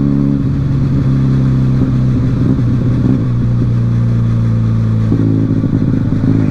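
Benelli motorcycle with an aftermarket exhaust running under way at cruising speed, a loud, low, even exhaust note. The engine note changes pitch about half a second in and again around five seconds in.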